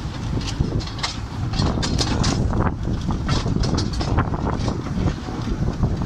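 Ride aboard a moving 2 ft gauge miniature railway train: a steady low rumble of the running carriage with irregular clicks and clatter from the wheels on the track, and wind buffeting the microphone.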